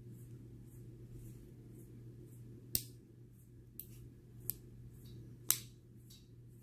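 Small metal parts of an Echo binary trigger clicking as they are fitted and snapped back together: four sharp clicks a second or so apart, the first and last loudest.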